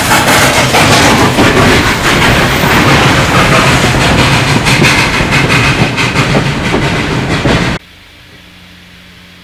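Western Maryland Scenic Railroad steam locomotive 1309, a 2-6-6-2 articulated Mallet, passing directly beneath at close range: a very loud, rushing blast of exhaust and steam. It cuts off suddenly near the end, leaving a faint steady hum.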